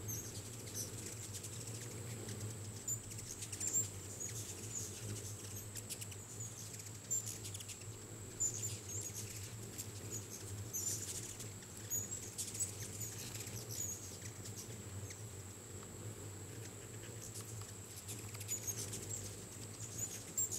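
A swarm of hummingbirds at feeders: wings whirring as birds zip close past one after another, a sound likened to light sabres, with many short high-pitched chirps scattered throughout.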